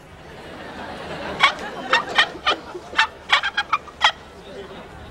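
A fowl-like bird's rapid run of short, sharp calls, about nine in under three seconds, starting about a second and a half in.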